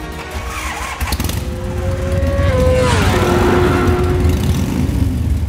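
Motorcycle engine sound in a logo sting: a sharp hit about a second in, then the engine rises in pitch and drops sharply about three seconds in, like a bike passing by.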